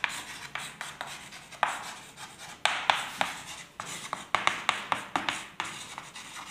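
Chalk writing on a blackboard: an irregular run of sharp taps and short scratchy strokes as letters are written.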